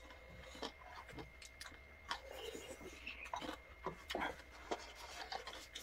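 Faint eating sounds: soft chewing and scattered small clicks of chopsticks against dishes.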